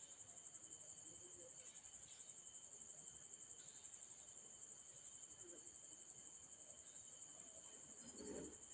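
Near silence, with a faint, steady high-pitched trill like insects.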